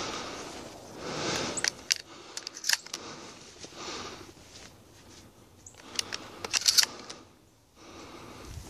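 Scattered sharp clicks and small metallic rattles of handled gear amid rustling movement, in two clusters: about two seconds in, and again six to seven seconds in.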